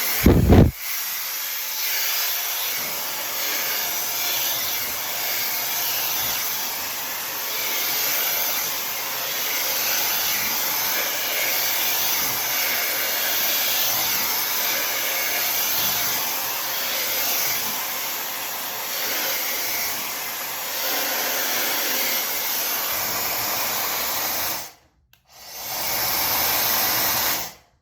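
Tymo Air Hype hot-air hair dryer blowing steadily. There is a short loud low thump about half a second in. Near the end the airflow cuts out for a moment, runs again briefly, then stops.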